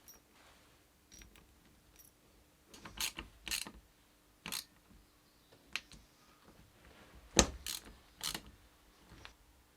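Scattered metallic clicks and knocks from hand tools and steering-rack parts being handled during reassembly, the sharpest strike about seven and a half seconds in.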